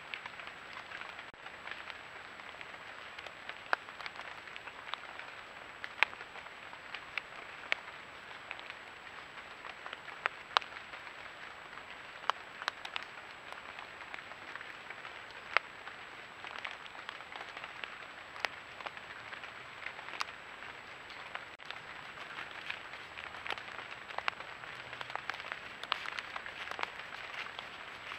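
Steady hiss with a faint, high, steady whine from a trail camera's built-in microphone, broken by scattered sharp clicks and crackles, about one every second or two.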